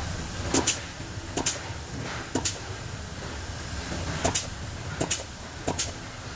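Sharp knocks or taps at uneven intervals, about one a second and sometimes in quick pairs, from tool work dismantling an electric motor. A steady low hum runs underneath.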